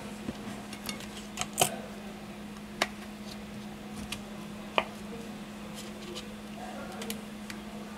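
A plastic card worked under the edge of a tablet's display to pry it off its adhesive without heat, giving a handful of sharp clicks and ticks, the loudest between one and two seconds in and others near three and five seconds. A steady low hum runs underneath.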